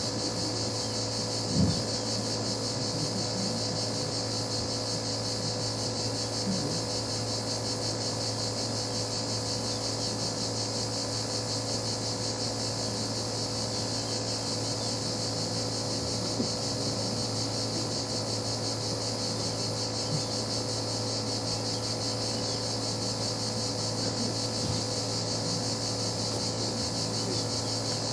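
Steady high-pitched hiss over a low, even hum, with a soft knock about a second and a half in.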